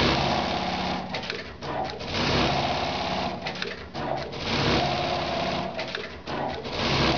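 Brother BAS-342GXL industrial pattern sewing machine stitching at speed while its pallet is driven through the pattern. The sound swells and dips irregularly as it sews.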